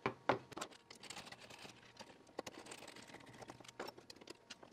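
Scattered small clicks and taps of circuit boards in a metal enclosure being handled and worked loose by hand, with two sharper clicks right at the start.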